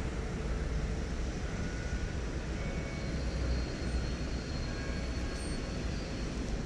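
Steady city street noise: a low rumble of passing traffic.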